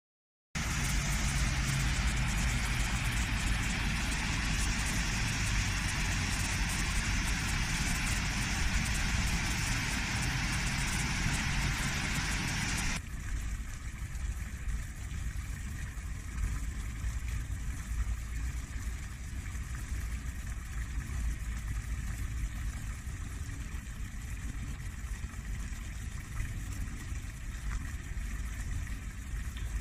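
Fountain water splashing steadily into a stone basin over a low rumble. About thirteen seconds in it cuts to the softer splashing of a small tiled fountain's jets.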